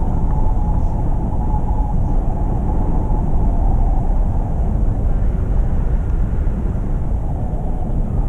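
Wind rushing over the camera's microphone in a tandem paraglider flight: a loud, steady, low rumble and buffeting with no distinct events.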